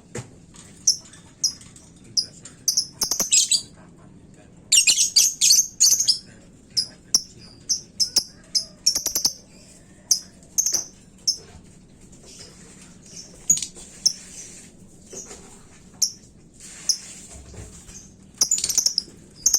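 Lovebird chirping: short, sharp, high-pitched chirps in irregular series, breaking into dense rapid chattering about five seconds in and again near the end.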